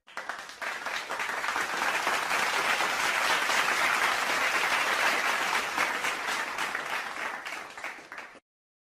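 Crowd applause: many people clapping, swelling over the first couple of seconds, holding, then dying away and stopping shortly before the end.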